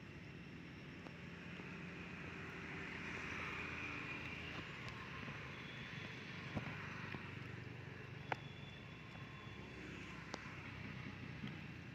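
Steady low hum of a distant motor over outdoor background noise, with three short sharp clicks in the second half.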